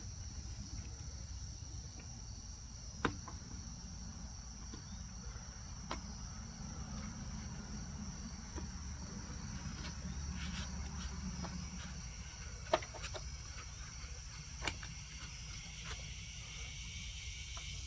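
Crickets chirring steadily in the background. A few sharp clicks and knocks are heard, one about three seconds in and others later on, as the saw and its oil cap are handled.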